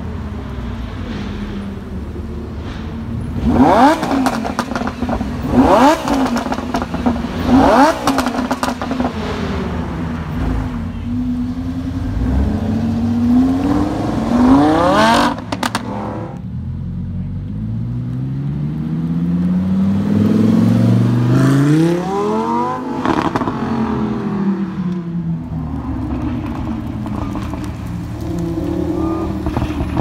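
Lamborghini Huracán's V10 engine blipped hard three times, about two seconds apart, then revved up and held. Later a Huracán accelerates hard, its engine note climbing in steps through the gears, then falling as it goes by.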